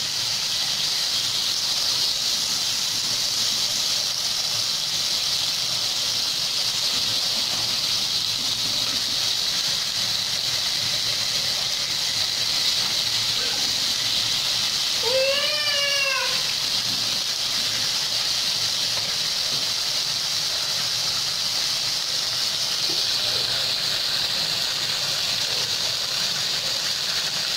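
Marinated beef slices sizzling steadily in their sauce on a hot flat griddle plate. About halfway through, a brief high-pitched call rises and falls for about a second.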